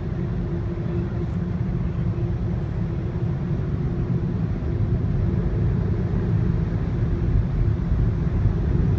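Car wash dryer blowers running, heard from inside the car: a steady deep rush of air with a constant hum, growing a little louder about halfway through.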